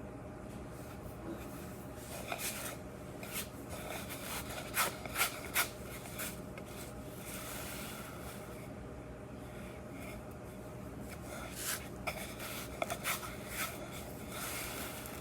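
Small toys and containers being handled and rubbed on a tabletop, with scattered light clicks and taps: a quick run of three about 5 seconds in and another cluster near 12 to 13 seconds, plus brief rustling swells.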